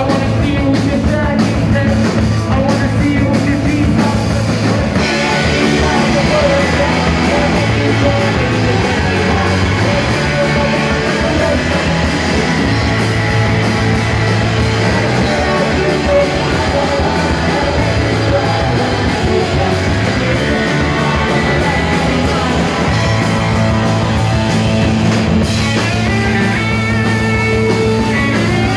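Loud live punk rock band: electric guitars, bass and drums, with a woman singing. Sharp drum hits stand out over the first few seconds before the sound thickens into a dense, steady wall of guitars and cymbals.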